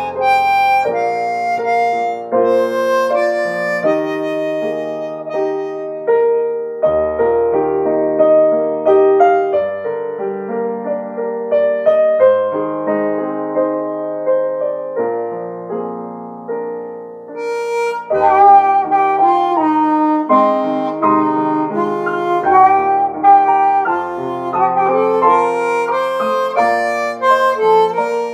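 Diatonic harmonica playing a Swedish hymn tune in held notes and chords, cupped around a handheld microphone. Just past the middle the playing briefly fades, then comes back louder and higher.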